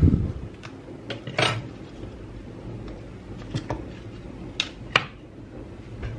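Clicks, taps and a short scrape of a metal fork working a foil-wrapped vegetable bouillon cube on a kitchen countertop, with the foil wrapper crinkling. A short scrape comes about one and a half seconds in, and a few sharp taps come near the five-second mark.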